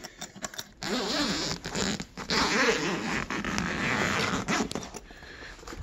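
Zipper on a pulk sled's fabric cover being pulled open in two long rasping strokes, a short one about a second in and a longer one from about two seconds in.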